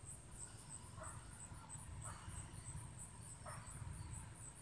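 An insect chirping steadily outdoors in a high, even pulse about four times a second, with a few faint soft rustling scuffs.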